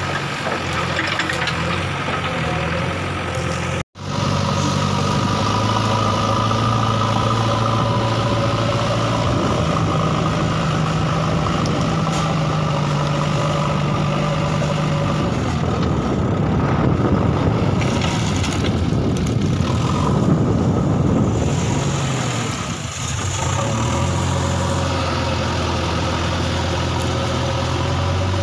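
JCB backhoe loader's diesel engine running, its note shifting up and down in pitch and loudness as the machine works. The sound drops out for an instant about four seconds in.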